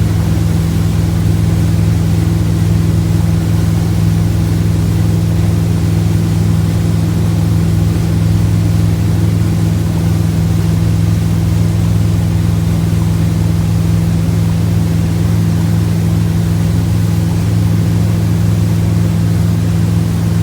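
Motorboat engine running steadily under way, held at about 2,500 RPM with an even, unchanging pitch.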